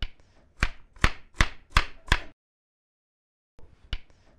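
A chef's knife chopping sticks of raw sweet potato into small dice on a cutting board. Five or six sharp strikes come at about three a second, then the sound drops out completely for about a second, then the chopping starts again near the end.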